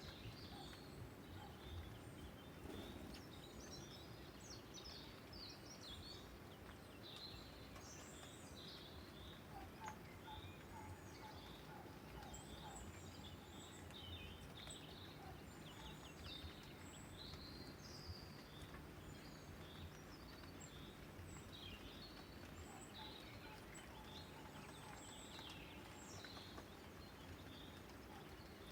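Birds chirping and twittering, many short calls one after another, faint, over a steady low background noise.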